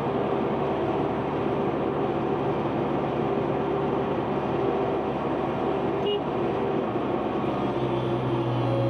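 Diesel engine of heavy earthmoving machinery running steadily, its engine note changing about seven seconds in.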